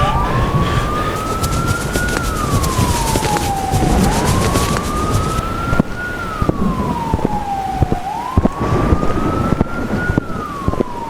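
A wailing siren, its pitch rising slowly and then falling, about one rise and fall every four seconds, over a steady rumbling noise. Sharp cracks come in the second half.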